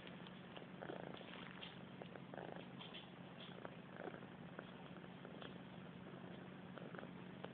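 Faint sounds of a kitten at play in curtain fabric: soft rustles and small scattered claw clicks, with short bursts about one and two and a half seconds in.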